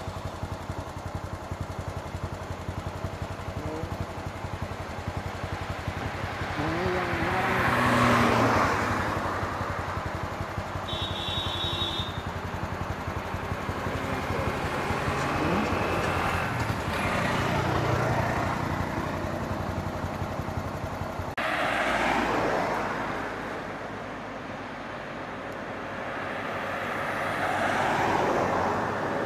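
Road traffic: motorcycles and cars passing one after another, each pass-by swelling and fading over a steady engine hum.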